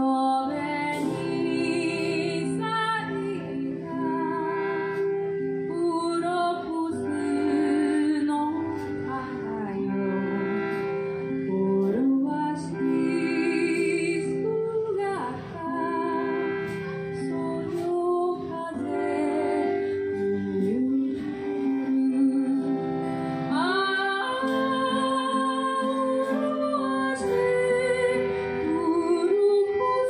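Live song: a woman singing with vibrato over strummed acoustic guitar, with an accordion-type bellows instrument holding sustained chords underneath.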